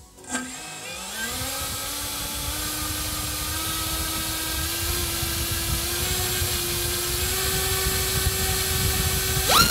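iFlight XING X2207 2750KV brushless motor spinning a Dalprop Cyclone 5249 propeller on a thrust test stand: a steady whine that climbs slowly in pitch and loudness as the throttle is eased up. Near the end it leaps sharply to a much higher, louder whine as the motor goes to full throttle.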